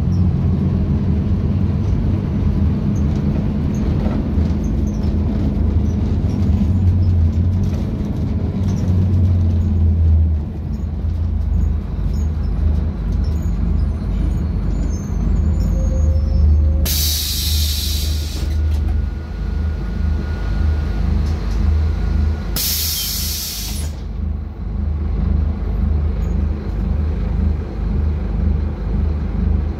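Ride noise inside a Scania K250UB bus: the diesel engine drones steadily and its note drops about ten seconds in. Compressed air hisses out loudly twice from the bus's air system, each hiss lasting about a second and a half, some five seconds apart.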